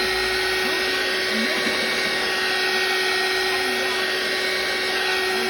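A small electric motor or blower running steadily: an even whirring hiss with a steady hum tone underneath.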